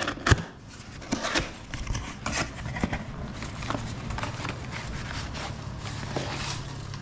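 Cardboard shipping box being torn open by hand: irregular crackling, scraping and rustling of cardboard and packing, with a sharp snap just after the start.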